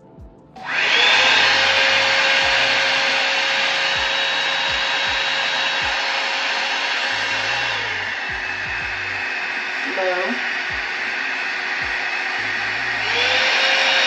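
Revlon One-Step hair dryer brush switched on about half a second in: its fan motor runs with a steady whine over loud rushing air. The whine drops in pitch about eight seconds in and climbs back up shortly before the end as the speed setting is changed.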